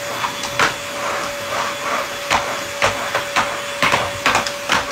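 Corded stick vacuum cleaner running with a steady motor whine, with about ten irregular sharp clicks and knocks.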